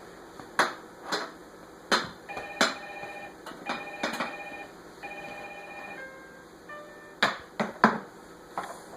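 A toy hammer banging on toys in uneven knocks, about nine in all. In the middle, an electronic toy plays a short run of beeping notes.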